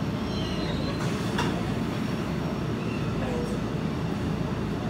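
Electric commuter train running, heard from inside the passenger car: a steady low rumble, with one sharp click about a second and a half in.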